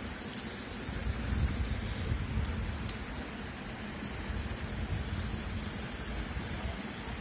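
Small rocky stream running over stones: a steady rushing of water with a low rumble underneath.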